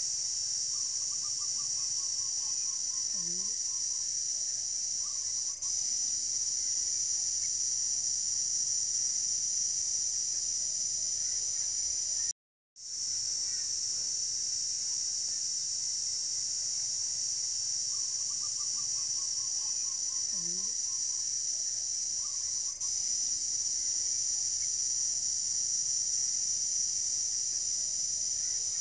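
Steady, high-pitched chorus of insects, with a bird's call of quick notes falling in pitch twice, about a second in and again about eighteen seconds in. The sound cuts out briefly near the middle.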